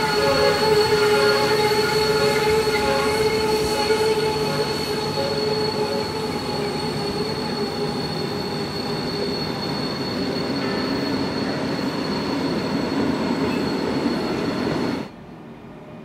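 Freight train of container wagons rolling past, its wheels squealing with several steady high-pitched tones over the rumble. The sound slowly fades as the last wagons pass, then cuts off abruptly near the end, leaving a quieter background.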